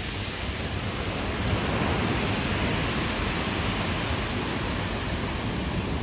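Sea surf washing onto the shore: a steady rushing noise that swells a second or two in.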